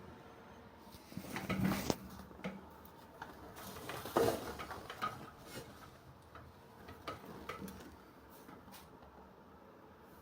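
Scattered light clicks and knocks, as from objects being handled and set down. There is a short burst of clatter about a second and a half in and another around four seconds in, then sparser single clicks.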